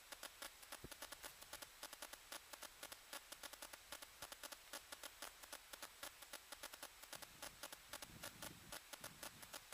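Faint, irregular crackling clicks, several a second, over a steady hiss, with a brief low rumble near the end.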